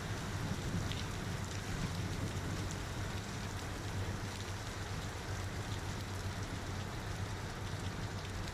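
Steady rain falling, with scattered faint drop ticks over a continuous low rumble.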